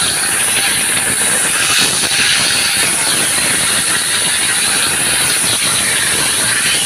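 Bhola fish pieces frying in hot oil in a kadai: a steady, loud sizzle with fine crackling.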